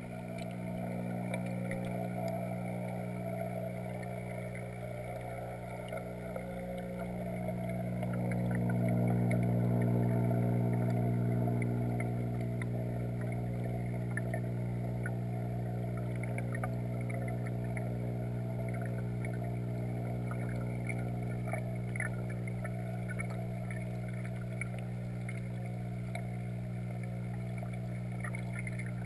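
Aquarium equipment heard underwater through a GoPro's waterproof housing: a steady, muffled motor hum from the tank's pump or filter, with faint bubbling and ticking from the air bubbles. The hum swells a little partway through.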